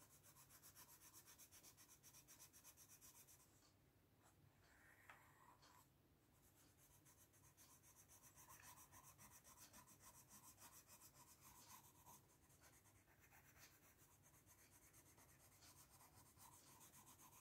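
Coloured pencil shading on paper: faint, rapid back-and-forth scratching strokes, pausing briefly about four seconds in before resuming.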